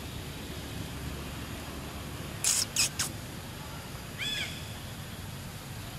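Short animal calls over a steady low background rumble: three quick, harsh, hissy high calls about two and a half seconds in, then a brief high chirp made of several arching tones about a second later.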